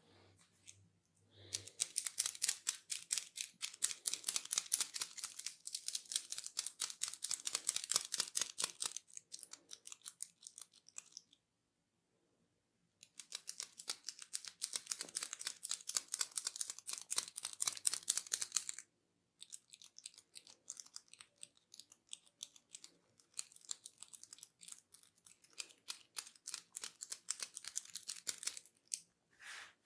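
Hair cracking during a head massage: fingers rubbing and twisting tufts of hair close to the scalp, giving runs of rapid crisp crackles, many a second. The crackling stops for about two seconds midway and is softer in the last third.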